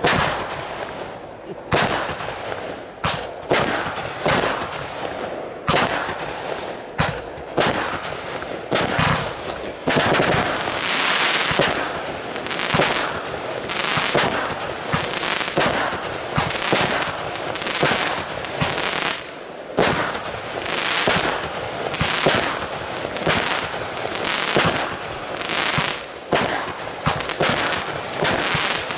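Aerial fireworks firing in quick succession: sharp bangs of launches and bursts about once a second. From about ten seconds in, a steady hiss fills the gaps between them.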